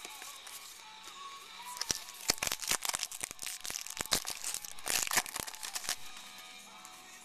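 Foil wrapper of a 2010 Topps Update baseball card pack being torn open and crinkled: a dense run of crackling from about two seconds in until about six seconds, over soft background music.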